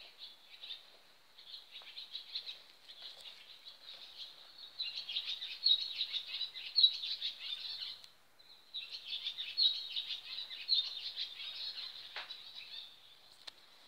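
Small birds chirping and twittering in a dense, high-pitched chorus before sunrise, swelling into two louder bouts about five seconds in and again around nine seconds.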